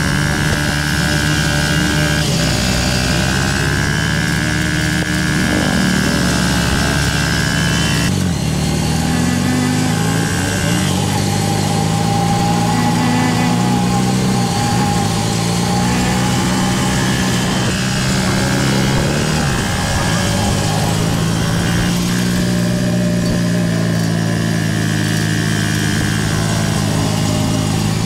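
Motorcycle engine of a homemade three-wheeled vehicle running as it drives, its pitch rising and falling several times with the throttle and gear changes.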